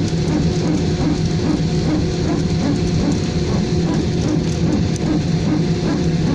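Airliner cabin noise: a loud, steady rumble of jet engines and airflow, with a low hum that holds an even pitch.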